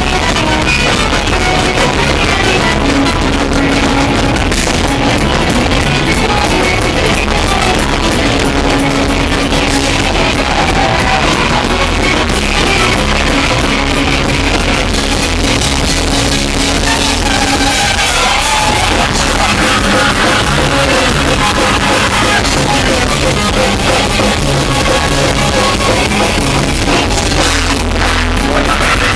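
Loud live rock band playing: drum kit and guitar in a dense, continuous wall of sound.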